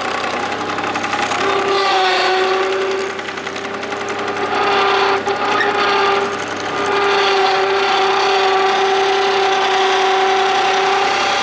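Madvac diesel rider vacuum running on its Kubota D1105 three-cylinder diesel. A steady high whine sits over the engine and drops out briefly a few times.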